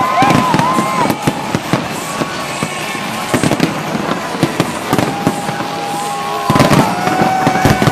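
Fireworks display: many sharp bangs and crackles going off in quick succession.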